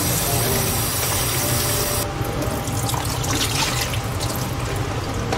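Kitchen tap running onto honeycomb tripe in a plastic colander over a stainless steel sink, shut off sharply about two seconds in. After that, scattered splashing and trickling as water drains out of the tipped colander.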